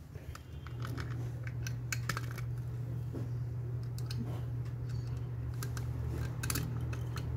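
Light clicks and taps of a Phillips screw and screwdriver against a plastic wall outlet as the screw is started into its mounting hole, over a steady low hum.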